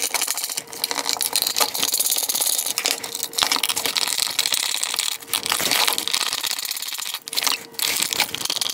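Hand driver with an E8 external-Torx socket backing screws out of an LED headlight ballast's aluminium housing: dense clicking and scraping of metal on metal.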